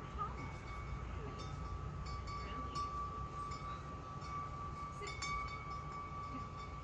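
Large metal tube wind chime ringing, struck lightly now and then with its tones sustaining and overlapping, over a low steady rumble.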